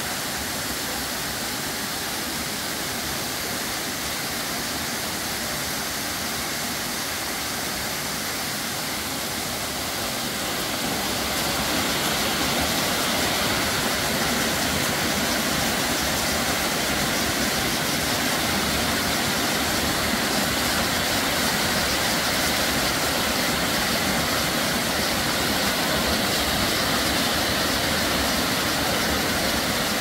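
Multi-tiered waterfall cascading over mossy rock terraces: a steady rush of falling water that grows louder about ten seconds in.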